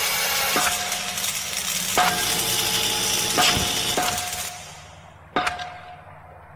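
Heavy metal band playing an instrumental section, with accented hits about every second and a half. About two thirds of the way in the band drops out, leaving a single hit that rings out and fades.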